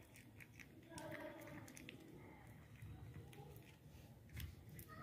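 Cat eating dry kibble: faint, irregular crunching clicks as it chews.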